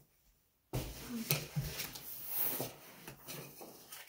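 Paper rustling and light knocks of a cardboard box being handled, with papers being pulled out; it starts suddenly about a second in.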